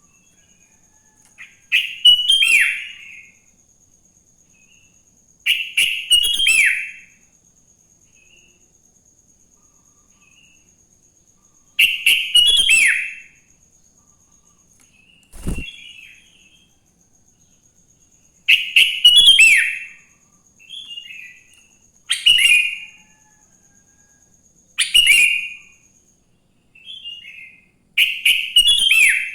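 Sooty-headed bulbul (kutilang) singing short, loud, bubbly phrases every few seconds, each ending in a falling note, with softer chirps in between. A faint steady high whine runs underneath, and there is a single brief thump about halfway through.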